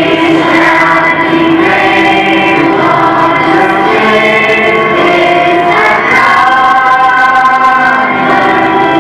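Children's choir singing a Christmas song together in long, held notes, the melody shifting to a new phrase about six seconds in.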